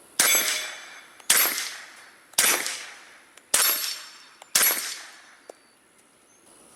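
Five suppressed .45-calibre pistol shots fired through a full-size Aklys Defense Pilum M suppressor, about one a second, each followed by a fading echo.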